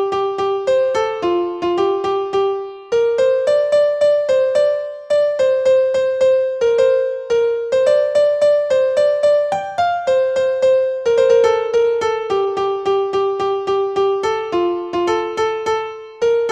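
Background music: a piano-like keyboard melody of quick, evenly paced notes, each struck and fading, with a couple of brief pauses.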